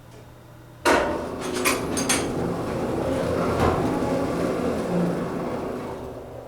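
Vintage Otis elevator starting off: a sudden clunk about a second in, a few sharp clicks, then the car running with a steady rumble that slowly fades.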